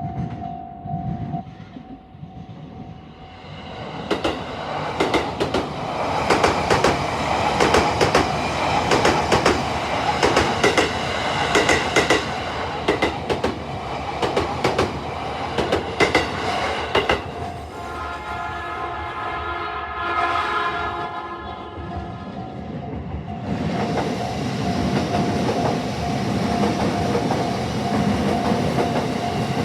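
Electric commuter train running past a level crossing, its wheels clattering rhythmically over the rail joints, then a horn sounding for a few seconds. The crossing's warning bell rings steadily underneath and comes through clearly again near the end as more train noise follows.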